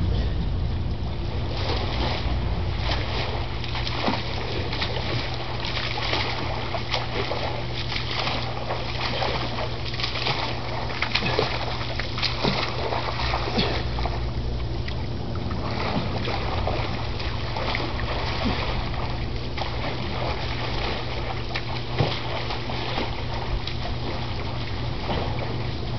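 Water splashing and sloshing, with many short irregular splashes over a steady low hum and wind rumble.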